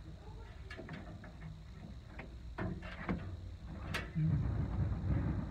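Light clicks, taps and scrapes of hand tools and a marker on the car's sheet metal. There is a sharp click about four seconds in, followed by a louder, duller thumping for about a second.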